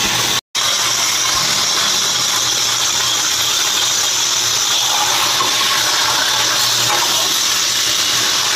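Marinated chicken pieces sizzling in hot oil in a pan on the stove: a steady, even hiss, broken off for an instant about half a second in.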